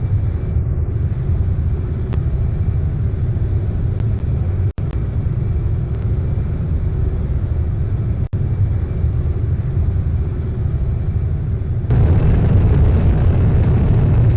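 Steady low rumble that steps up louder about twelve seconds in, broken by two very brief dropouts.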